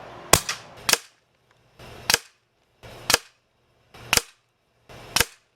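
Umarex Notos PCP air rifle firing .22 Crosman Pointed pellets: six sharp shots about a second apart, each cut off abruptly.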